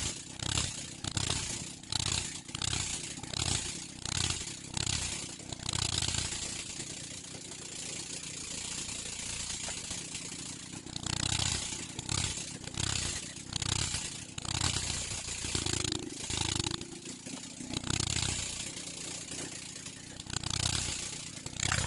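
Diesel 'Peter' pumping engine running with a rhythmic thudding, about two beats a second, that evens out into a steadier noise for a few seconds midway.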